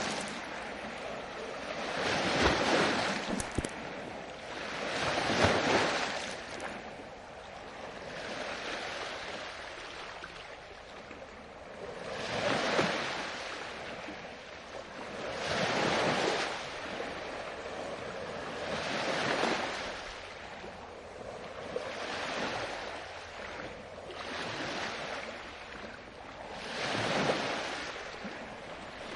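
Ocean waves washing in one after another, each a swelling rush of water that fades away, about every three seconds.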